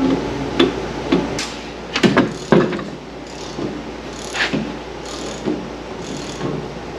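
Irregular knocks, clicks and clanks of hand work on a car's front wheel and suspension, with a cluster of sharper knocks about two seconds in and fainter scattered ones after.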